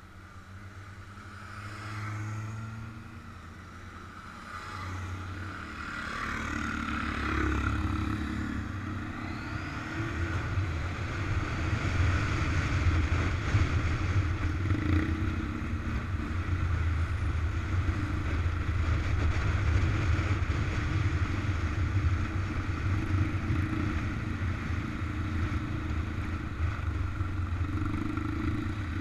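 Motorcycle engine heard from the rider's own bike, gathering speed in a few steps over the first ten seconds, then cruising steadily under a low rumble of wind on the microphone.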